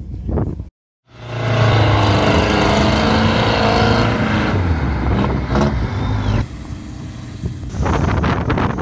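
An off-road vehicle's engine runs hard under load during a strap tow out of deep mud. It comes in loud after a moment of silence about a second in and eases off about two-thirds of the way through. Near the end wind buffets the microphone.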